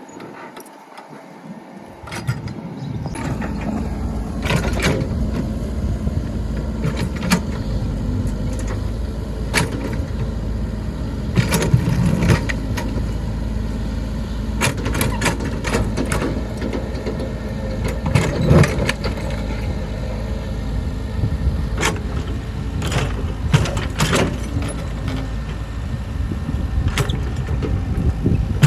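Excavator engine running hard under load, rising about two to three seconds in and then holding steady, with scattered sharp clanks and knocks of metal against rock as the bucket pries at a large stone.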